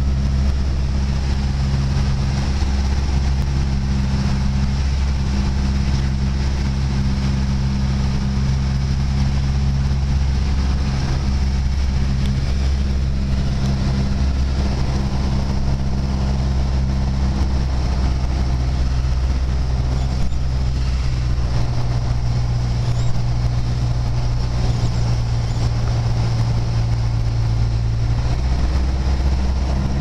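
Piper PA-28-161 Warrior's four-cylinder Lycoming engine and propeller droning steadily, heard from inside the cabin on final approach. The pitch of the drone shifts slightly near the end.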